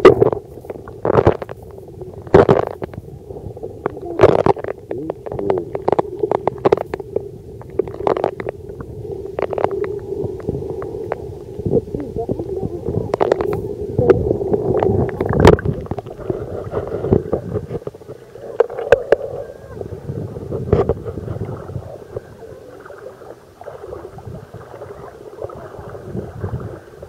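Muffled underwater noise of a camera held under the sea: a steady low rumble of moving water, with scattered sharp knocks and clicks through the first half. The knocks thin out in the last several seconds.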